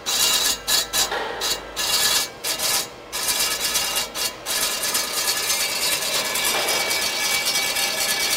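Steel rod rubbing and scraping as it turns through the rollers of an FDY-6L two-roll straightening machine, a hissing rasp. For the first few seconds it comes in short bursts with gaps, then it runs on steadily with a faint ringing.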